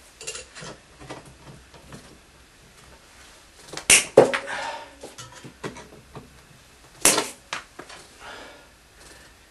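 Pliers working stiff leg wires: a few sharp snaps and clicks, two close together about four seconds in and another about seven seconds in, with lighter ticks and handling noise between them.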